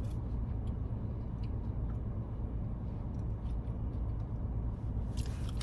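Steady low rumble inside a car, typical of the engine idling, with a few faint clicks.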